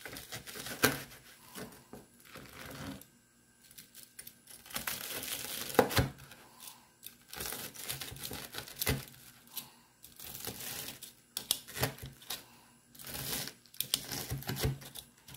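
Knife sawing through a crispy breaded fried pork chop, the breadcrumb crust crunching and crackling in short spells, with a few sharp taps as the blade comes down on the plastic cutting board.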